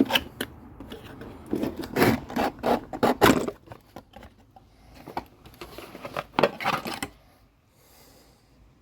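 Hand-handling noises of parts: a run of sharp knocks, clicks and scraping that stops about seven seconds in, leaving it much quieter.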